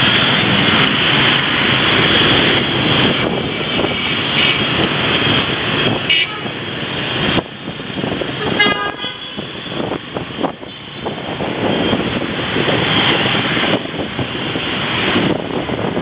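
Motorbike ride through dense scooter and car traffic: a steady rush of engine and road noise, with vehicle horns tooting now and then.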